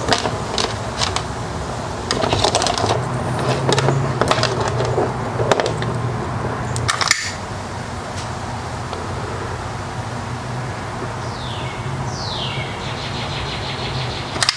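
Clicks and rustles of thin wires being handled, then a sharp click about seven seconds in as a butane utility lighter is lit and its flame heats heat-shrink tubing over a soldered wire splice. A steady low hum runs underneath.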